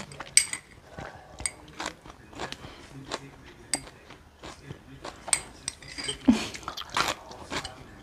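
Close-miked chewing of crisp raw sea kale stems: irregular crunches and wet mouth clicks, with a few light clinks of a spoon against a ceramic bowl and plate.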